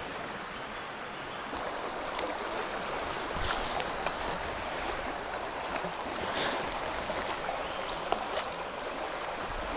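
Shallow stream water running steadily, with a few faint splashes and ticks scattered through it.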